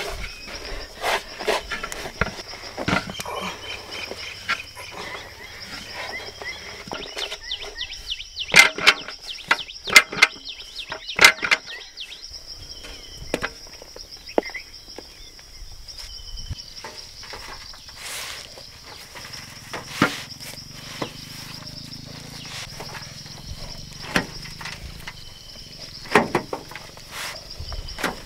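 Insects drone steadily at a high pitch, with intermittent knocks and scrapes from hands working crumbly besan mixture in a large aluminium pot, loudest and most frequent about a third of the way in.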